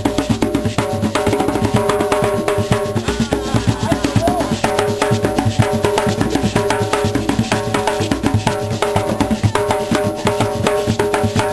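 African-style drumming: drums played in a fast, dense rhythm of many strokes a second, over a few steady held tones.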